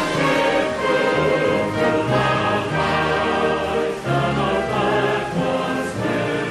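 Recorded US military concert band music playing a full ensemble passage of sustained chords; the fireworks themselves are not heard.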